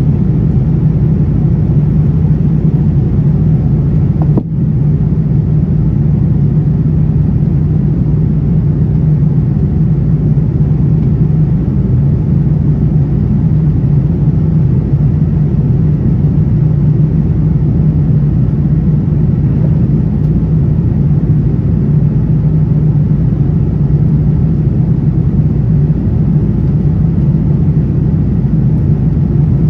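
Steady cabin noise of a Boeing 787-9 airliner in descent: an even rush of engine and airflow noise with a strong low hum. It briefly dips about four seconds in.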